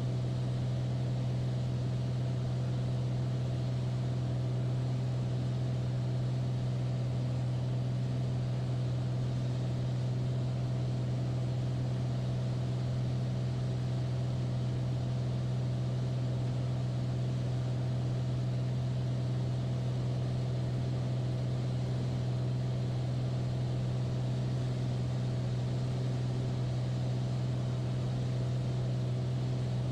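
Beechcraft A36 Bonanza's piston engine and propeller in cruise flight, a steady low drone heard from inside the cockpit with no change in pitch or level.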